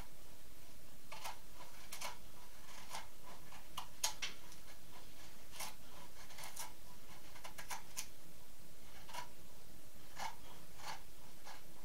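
A hand carving tool taking light shaving cuts in the pine bill of a duck decoy: short, irregular scraping clicks, often in quick clusters of two or three, with one sharper snick about four seconds in.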